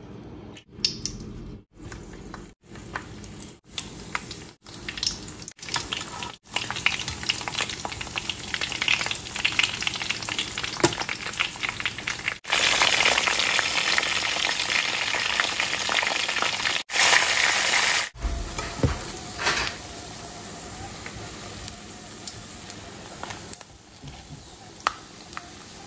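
Dried fish (daing) frying in hot oil in a pan, sizzling steadily, heard in several short clips cut together. The sizzling is loudest in the middle stretch, then drops to a fainter sizzle near the end.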